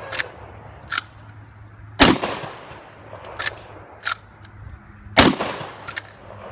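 Two shots from a CAI PW87 Model 1887 replica 12-gauge lever-action shotgun, about three seconds apart, each trailing off in a long echo. Between the shots come pairs of sharp metallic clacks as the lever is worked to eject the spent shell and chamber the next.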